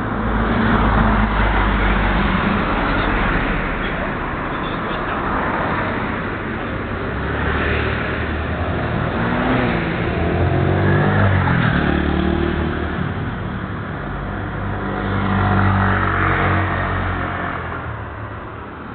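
Cars passing on a street, their tyre and engine noise swelling and fading several times. Around the middle, an engine note rises as one accelerates.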